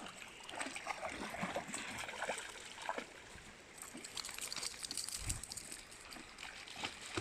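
Faint splashing and trickling of shallow river water as dogs wade through it after a thrown object, with small irregular splashes.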